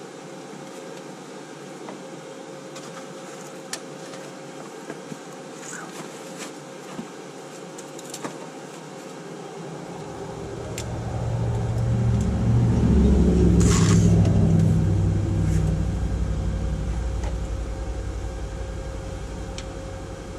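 A few light clicks of parts being handled, then a passing motor vehicle's low engine rumble that swells from about halfway through, peaks, and fades slowly.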